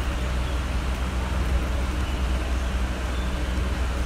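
Steady low rumble with an even hiss above it, unchanging throughout, with no distinct knocks or clicks.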